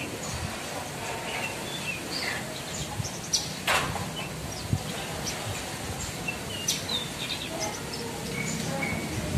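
Javan bush lark (branjangan) giving scattered short chirps and twittering phrases over steady outdoor background noise, with one louder sharp sound about four seconds in.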